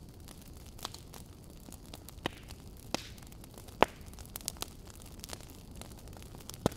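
Fireplace crackling: a steady low rumble with scattered sharp pops and snaps. The loudest pop comes a little before four seconds in, and another comes near the end.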